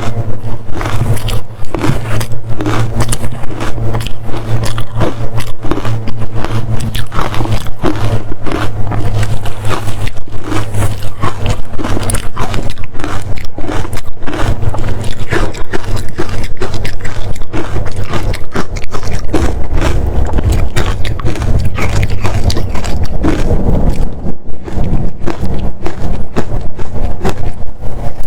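Biting and crunching frozen matcha ice with a dry texture, close to the microphone: a dense, continuous run of loud, crisp crunches.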